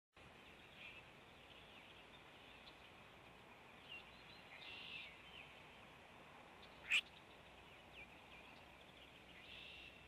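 Faint bird chirps and short calls, scattered and high-pitched, with one brief, sharper and louder sound about seven seconds in.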